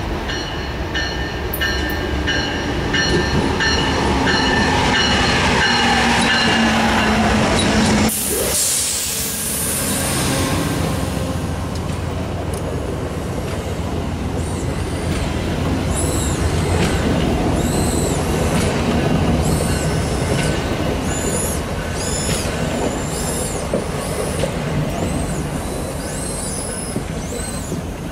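Amtrak Cascades passenger train: first the approach, with a steady layered tone and a slowly falling low tone. After an abrupt cut about eight seconds in, the Talgo coaches roll past with a rumble and many short, high wheel squeals.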